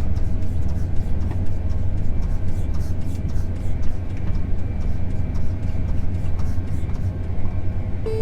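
Vehicle engine running steadily with road noise, heard from inside the cab while driving.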